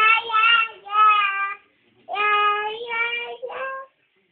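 A child singing in a high voice, holding long notes in three phrases with short breaks between them.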